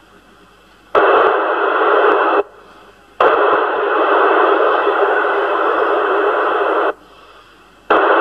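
CRT 7900 CB transceiver on channel 30 FM giving rushes of receiver static through its speaker as the squelch opens and shuts: a loud hiss starts suddenly about a second in, drops out for about a second, returns for nearly four seconds, cuts out again and comes back near the end.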